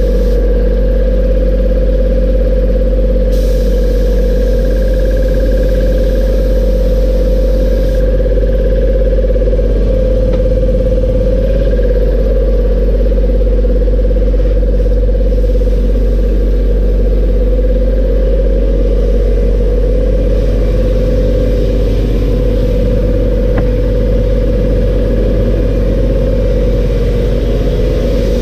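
Air compressor running steadily, a loud constant hum with a strong steady mid-pitched tone, feeding a spray gun; a hiss of air rises over it for a few seconds near the start.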